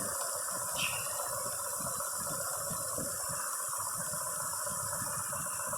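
Range Rover 4.4-litre V8 idling unevenly with a misfire: cylinder 5 is dead, which the mechanic puts down to a bad ignition coil.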